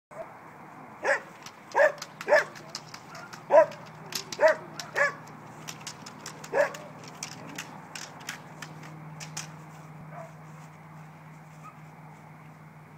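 Dog barking at a decoy during bitework, about seven sharp, loud barks in the first seven seconds, then falling quiet as it goes for the sleeve. A quick run of sharp clicks and rattles joins the barks from about four seconds in, with a steady low hum underneath.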